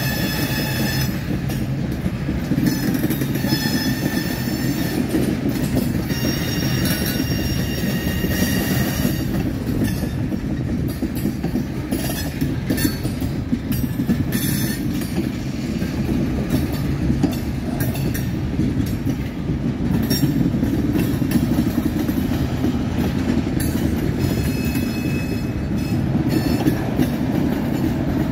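Freight train of tank cars rolling past: a steady rumble of steel wheels on rail with clicking over the rail joints. A high-pitched wheel squeal comes and goes a few times in the first third and again near the end.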